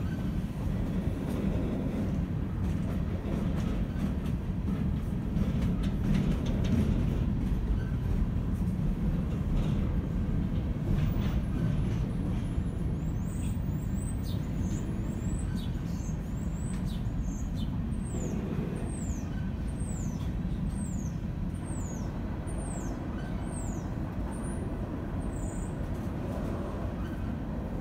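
Loaded coal train's hopper cars rolling slowly past, a steady low rumble of steel wheels on the rails.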